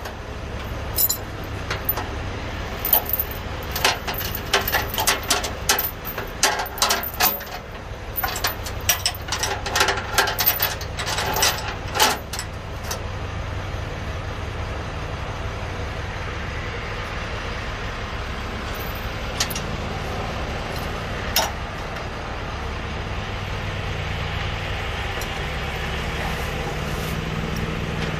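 Steel tow chain clinking and rattling against a truck's steel bumper as it is handled, in quick irregular bursts that die out about halfway through, with only a couple of single clanks after. A truck engine runs steadily underneath.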